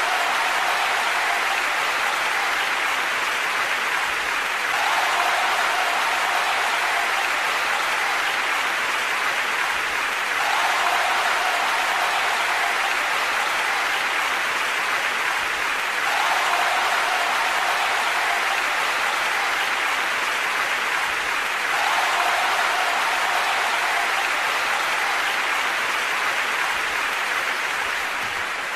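Audience applause: steady clapping from a large crowd, the same stretch of clapping looping about every five and a half seconds.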